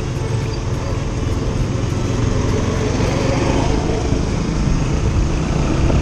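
Sport motorcycle running under way in slow traffic, heard from the rider's helmet camera as a steady low rumble.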